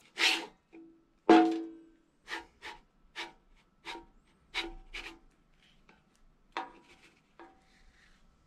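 A spatula scraping and knocking against a flat griddle as it is worked under a pancake to lift it: about a dozen short, uneven scrapes and taps, a few of them ringing briefly off the metal.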